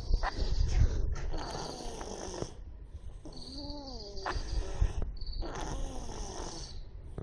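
A tomcat snoring loudly in his sleep, one noisy wheezing breath every second or two with a thin whistle on top.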